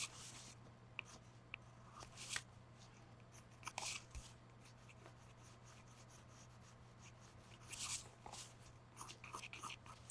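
Faint pencil work on a paper art card: short scratchy strokes in scattered bursts, a quick run of them near the end, with light paper handling between. A steady low hum sits underneath.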